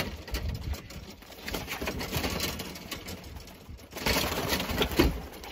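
Pigeons being let out of a wooden box: rustling, then wings fluttering and clattering as they take off. The loudest burst comes about four to five seconds in.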